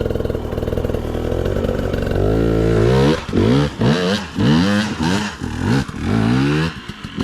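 Dirt bike engine running steadily, then revved up and down over and over, about six quick rises and falls of pitch, as the throttle is worked.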